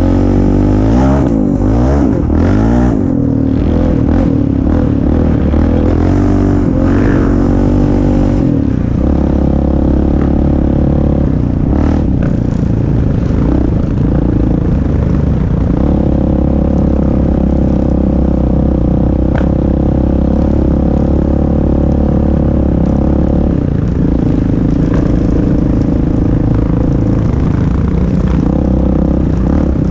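Sport quad ATV engine running under way, heard close from the rider's seat, its pitch wavering with the throttle in the first few seconds and then holding steady notes that shift up or down a few times. A couple of short knocks come through from the ride over the trail.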